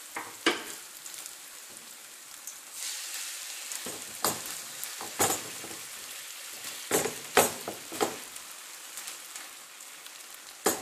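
Beaten egg sizzling and frying as it is poured into a hot non-stick frying pan beside frying pancetta and spring onion, a steady hiss broken by several sharp knocks against the pan.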